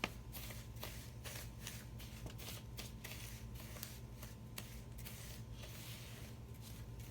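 Flour, sugar, salt and baking powder being whisked in a mixing bowl: a faint, rhythmic dry scraping and rustling, a few strokes a second.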